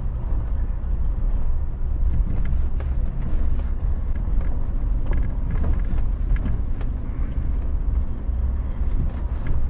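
4x4 vehicle driving slowly over a gravel dirt track: a steady low engine and tyre rumble with scattered small clicks and knocks.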